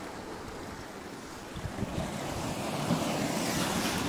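Sea surf washing against the boulders of a rocky breakwater, with wind buffeting the microphone; the sound swells a little in the second half.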